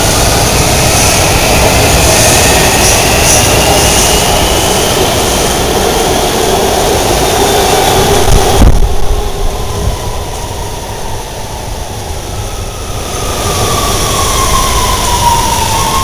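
Washington Metro subway train pulling into an underground station: a loud rumble of wheels on rail with a slowly rising electric whine. About nine seconds in the sound drops suddenly, and near the end a falling whine is heard as the train slows to a stop.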